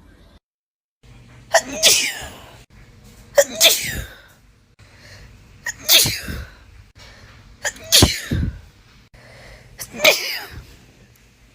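A person sneezing five times in a row, about two seconds apart: a sneezing fit.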